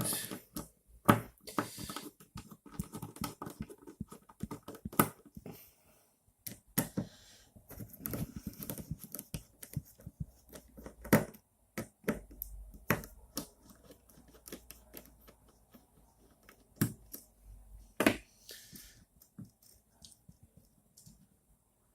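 Acrylic frame parts and small hardware being handled: irregular clicks, taps and knocks of plastic pieces against each other and the bench, with stretches of rustling.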